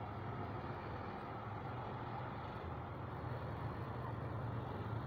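Concrete mixer truck's diesel engine running with a steady low hum.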